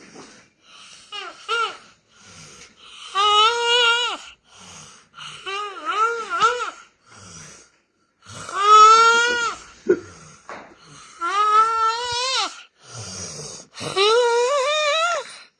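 A man snoring, with a high, whining, wavering squeal on each breath, repeating every two to three seconds with breathy noise between.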